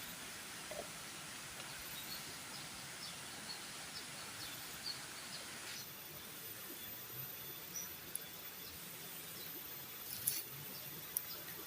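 Rainforest ambience: a steady hiss with a thin high insect whine, scattered short bird chirps, and a few sharp clicks in the second half.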